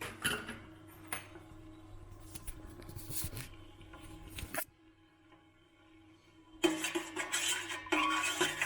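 Metal utensil clinking and scraping against a saucepan of simmering pepper sauce, in scattered light knocks. About two-thirds of the way in, louder music comes in.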